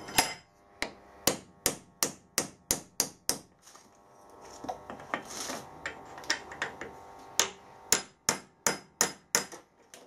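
Hammer tapping a tight-fitting bush into the bore of a tractor injector pump part: sharp metallic taps, about three a second, in two runs with a short pause between them.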